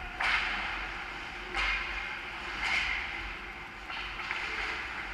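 Ice hockey skate blades scraping and carving on rink ice: a hiss that swells sharply about once a second, four times, each fading off.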